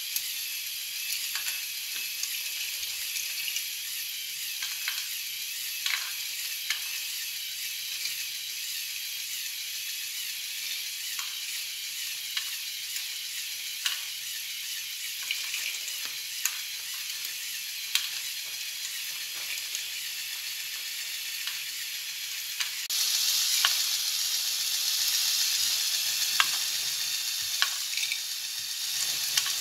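LEGO Technic bucket wheel excavator running on its Power Functions XL motor: a steady high whir from the motor and plastic gears, with scattered sharp clicks as the bucket wheel scoops wood pellets and the conveyor carries them. It gets louder from about 23 seconds in.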